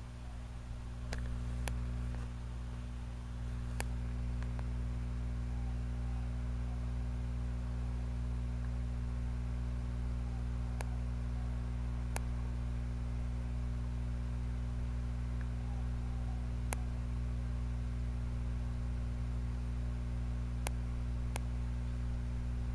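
Steady low hum with a faint hiss, broken by a few faint scattered clicks.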